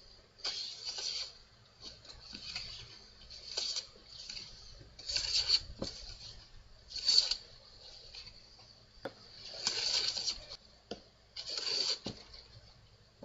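Hand plane shaving a wooden workbench leg: a series of separate hissing strokes, each half a second to a second long, with short pauses and small knocks between them.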